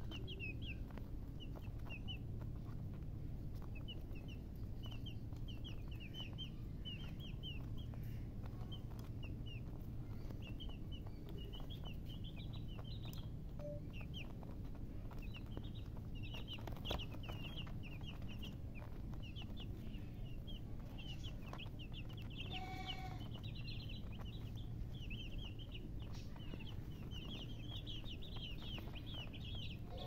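A group of domestic chicks peeping: many short, high, falling peeps, several a second, coming in overlapping clusters without pause.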